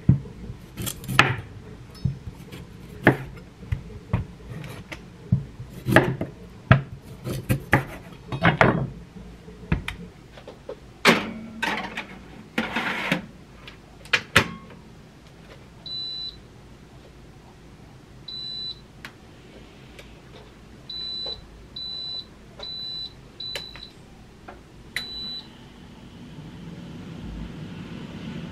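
A chef's knife cutting raw sweet potatoes on a wooden cutting board, with a sharp knock on the board at each cut and some scraping. Then an air fryer's touch panel beeps about seven times as it is set, and its fan starts running with a low hum near the end.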